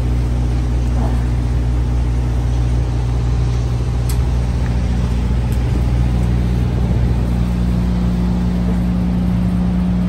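A semi truck's diesel engine idling: a steady low hum, with one of its notes growing stronger about seven seconds in.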